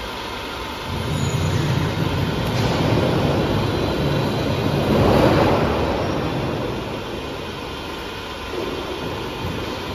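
Double-layer roll forming machine running, feeding thin steel sheet through its lower roller stands to form corrugated roofing sheet. A steady mechanical hum and rolling metal noise grows louder about a second in, is loudest around the middle, then eases off.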